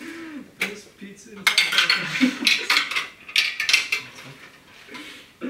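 Marbles clattering along a plastic marble-run track, a quick series of clicks and rattles that starts in earnest about a second and a half in and thins out near the end.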